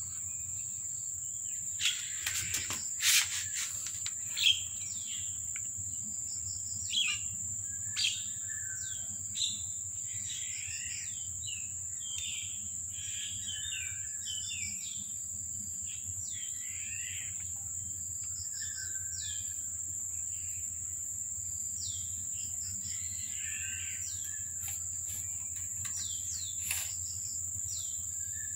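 Small birds chirping all around in short, repeated falling calls, over a steady high-pitched insect drone. A few sharp clicks stand out about two to four seconds in.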